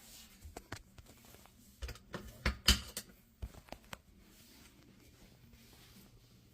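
A run of sharp clicks and knocks from handling parts behind a refrigerator during an inlet-valve repair, bunched in the middle with the loudest knock about two and a half seconds in, over a faint steady hum.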